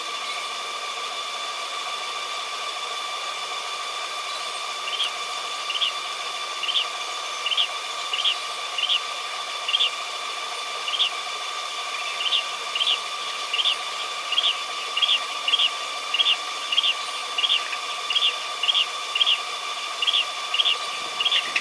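Spotted dove squabs peeping in short, high, rising squeaks while being hand-fed. The peeps begin a few seconds in and quicken to about two a second, over a steady high-pitched whine.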